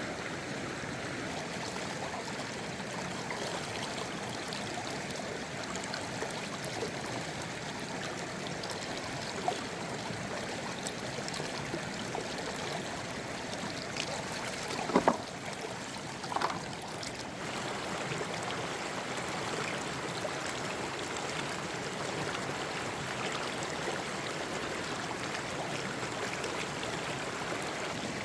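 A mountain stream flowing steadily. A little past halfway, two brief, louder sharp sounds cut through it.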